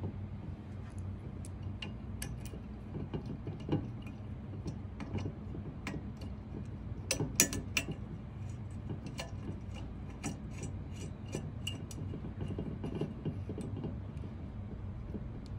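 Small clicks and clinks of mounting hardware being handled: a washer and rubber gasket fitted onto a bolt on a metal mount bracket and a plastic knob threaded on by hand. The clicks come irregularly, thickest around the middle, over a steady low hum.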